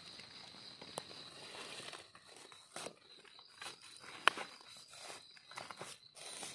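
A hand scraping and rustling through dry leaf litter and soil on the forest floor, with scattered sharp clicks, the loudest about four seconds in. A steady high tone runs underneath.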